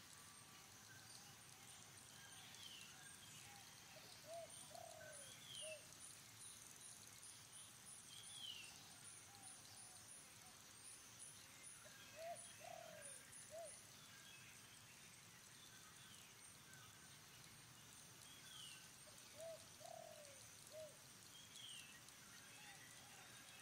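A dove cooing in short three-note phrases, repeated three times about seven or eight seconds apart. Other birds give occasional high downward chirps, and a fast high ticking trill runs through the first half.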